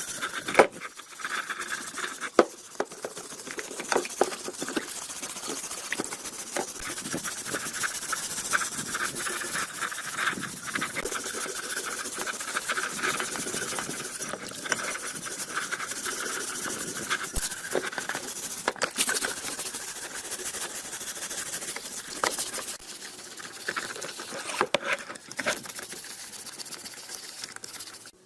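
Rusty axe head being worked by hand with an abrasive tool: a continuous scratchy rasping of metal, with scattered sharp clicks and knocks. It starts and stops abruptly.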